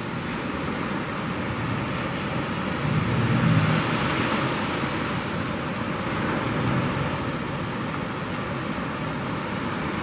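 Surf breaking and washing on the shore, with wind on the microphone; the wash swells about three seconds in.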